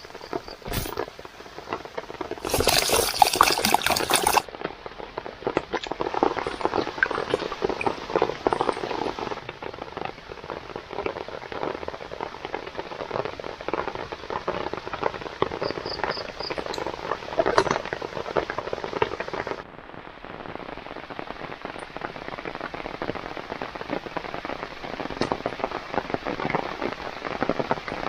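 Rain falling steadily, with a louder stretch about two to four seconds in.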